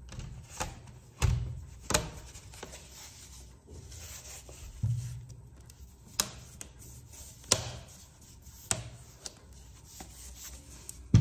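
Hard plastic MacBook shell case being handled and taken off the aluminium laptop: a string of sharp clicks and knocks, about one every second or so, with rubbing between.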